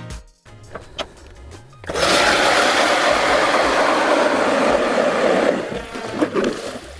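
ION Alpha electric ice auger drilling a hole through lake ice, a loud, steady rushing of the blade chewing through ice that starts about two seconds in and tails off near the end. Background music with a beat plays throughout.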